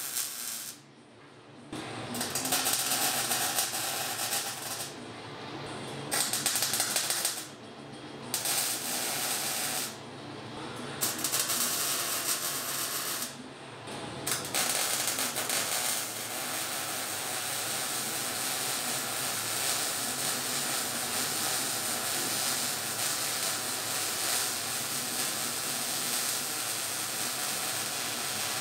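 MIG welder crackling as it welds roll cage tubing. Several welds of one to three seconds with short breaks, then one long unbroken run through the second half.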